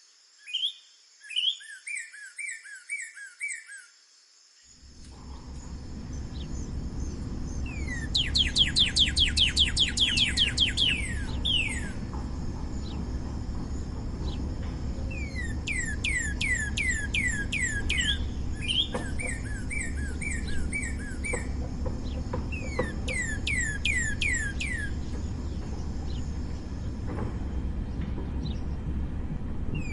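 Northern cardinal singing: bouts of rapid down-slurred whistles and runs of repeated short notes, several phrases in succession. A few seconds in, the background changes from near quiet to a steady low rumble with a steady high hum, where a second recording begins.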